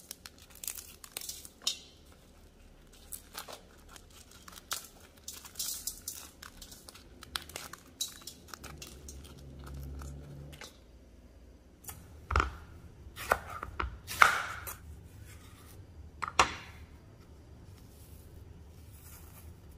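Brittle dried chiles crackling and tearing as their stems and seeds are pulled out by hand, in many small irregular crackles. A few louder knocks and crackles come in the second half, the first a dull knock about twelve seconds in.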